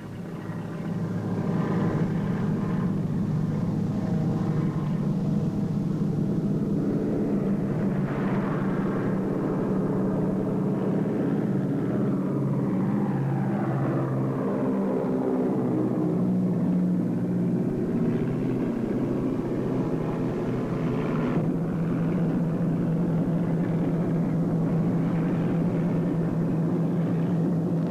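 Ford Tri-Motor's three radial engines running with a steady propeller drone, its pitch sliding up and down a few times as the plane moves past.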